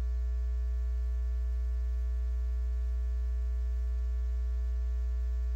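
Steady low electrical mains hum with a few faint steady tones above it and light hiss, carried on the broadcast audio feed between commentary lines.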